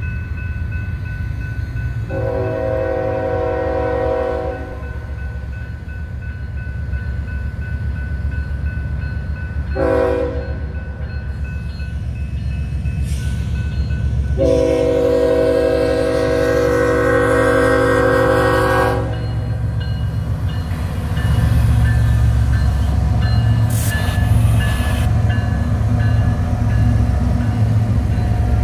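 Air horn of a CN diesel freight locomotive sounding for a grade crossing: a long blast, a short one, then another long blast, over a steady low rumble of the approaching train. About two-thirds of the way in, the locomotive's diesel engine and the rolling cars grow louder with a rhythmic throb as the train passes close by.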